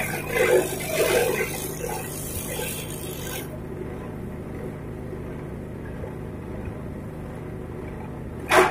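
Grass chopper machine running, with rough uneven chopping noise for the first three seconds or so, then settling to a quieter steady hum. A dog barks near the end.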